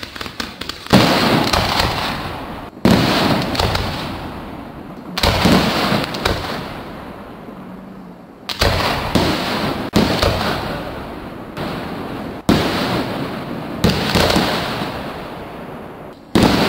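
Fireworks display: aerial shells bursting one after another, about eight sudden bangs roughly every two seconds, each trailing off over a second or two.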